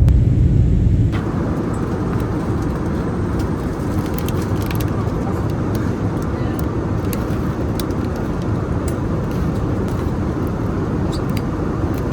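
Steady roar of an airliner's engines and rushing air heard inside the cabin, with a few faint clicks.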